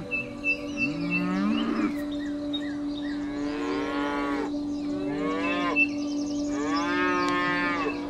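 Cattle mooing: four long, drawn-out moos that rise and fall in pitch. Under them runs a steady low hum, with short high chirps repeating.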